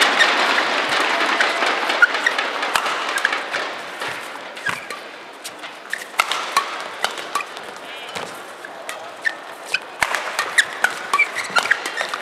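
Arena crowd applause dies away over the first few seconds, then scattered sharp claps and knocks ring out in the hall, growing busier near the end.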